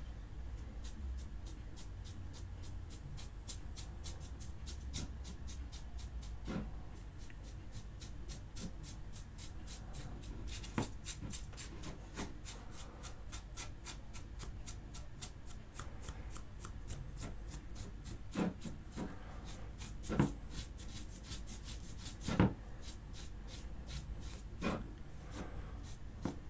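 Stiff paintbrush dry-brushing the textured fur sculpt of a plastic action-figure arm: a steady scratchy rubbing of bristles flicking across the raised ridges in rapid fine strokes. A few louder short knocks come through now and then.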